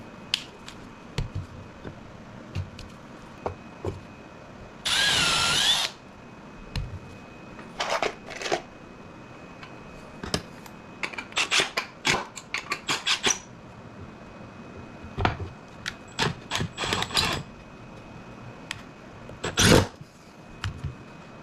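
Cordless drill running in one burst of about a second, about five seconds in, its whine wavering in pitch. Around it come scattered knocks and clatter of plywood panels being handled, with one sharp knock near the end.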